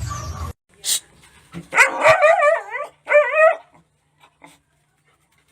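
A dog whining and howling in two wavering, up-and-down calls, a longer one followed by a shorter one.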